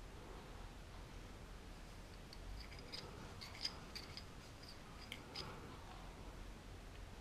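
Faint, light metallic clicks and taps from handling a gun-cleaning rod with a bore brush against a pistol barrel, several in quick succession in the middle.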